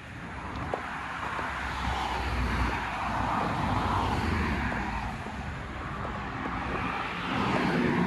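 Road traffic passing: a rush of tyre and engine noise with a low rumble that swells over the first few seconds, eases, and rises again near the end.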